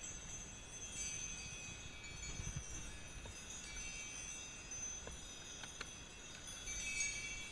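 Sleigh bells on a Shetland pony's harness ringing steadily as the pony pulls a sled, with a few faint ticks.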